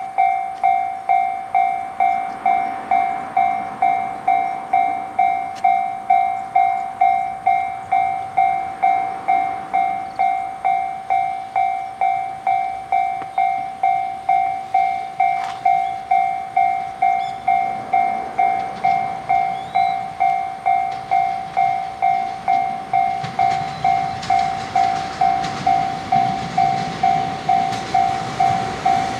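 Railway level-crossing warning bell dinging steadily about twice a second. From about halfway through, the rumble of an approaching EF210 electric locomotive hauling a freight train grows beneath it.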